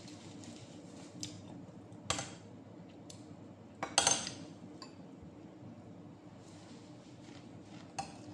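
A metal spoon clinking against a glass bowl of rice and a plate, a few separate clinks with the loudest about four seconds in, over a low steady hum.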